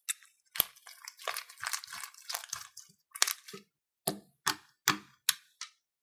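Hands squeezing and poking clear sequin-filled slime: a quick run of sticky crackles and clicks, then five separate pops about a second and a half from the end, evenly spaced.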